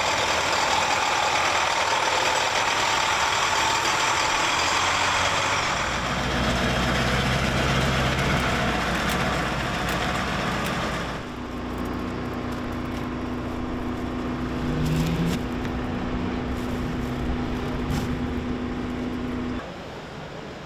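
A truck engine running, with a loud hiss over it for the first half. About halfway through the sound changes abruptly to a steadier engine drone, which cuts off suddenly near the end.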